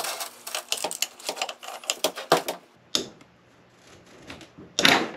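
Hand ratchet clicking in quick runs as it backs out the half-inch bolts holding the stator support in a 47RE/48RE transmission front pump. Near the end comes a single louder clunk as the metal pump is handled on the steel bench.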